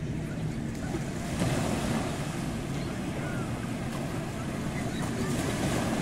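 Small sea waves breaking and washing up the sand, swelling about a second and a half in and again near the end, with wind rumbling on the microphone.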